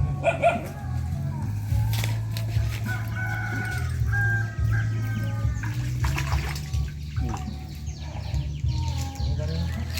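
Chickens crowing and clucking, over a steady low hum and some background music.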